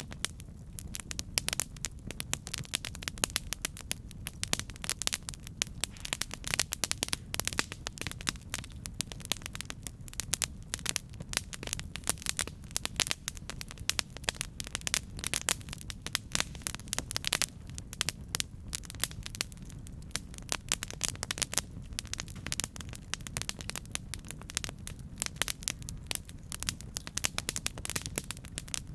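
Campfire burning: dense, irregular crackles and pops of burning wood over a steady low rumble of the flames.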